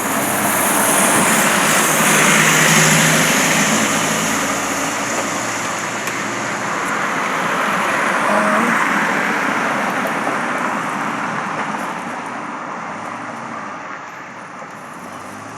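Road traffic passing by: a steady rush of vehicle and tyre noise that swells twice, loudest about 2 to 3 seconds in and again about 8 seconds in, then slowly dies away.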